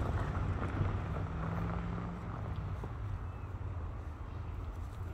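A steady low engine rumble with wind buffeting the microphone. About a second in, a low hum rises over it for under two seconds.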